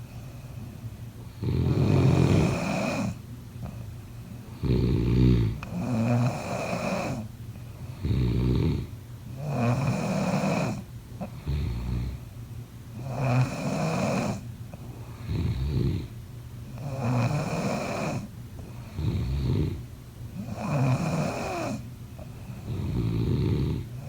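A person snoring in a steady rhythm, about six breaths, one every three and a half to four seconds. Each breath alternates a low rattling snore with a breathy rush of air.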